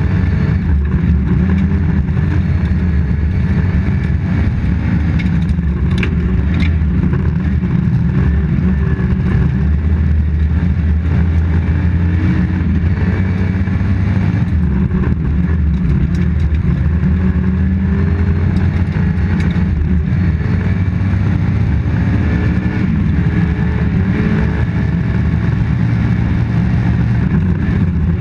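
Toyota Corolla GT rally car's engine running hard on a stage, heard from inside the cockpit, its revs rising and falling through the gears over steady tyre and road noise. A couple of sharp knocks about six seconds in.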